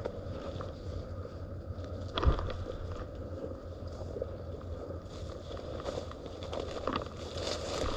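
Wind buffeting the microphone as a low rumble, with faint rustling and handling noise and one sharp thump about two seconds in.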